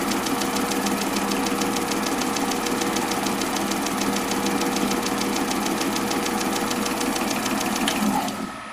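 Small lathe and tool-post grinding wheel running steadily with a fast, even ticking while a new clock pivot is ground to size. The motors are switched off near the end and wind down.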